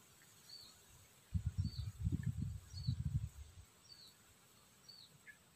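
Wind buffeting the microphone in low rumbling gusts for about two seconds in the middle. Under it, a small bird repeats a short high chirp roughly once a second.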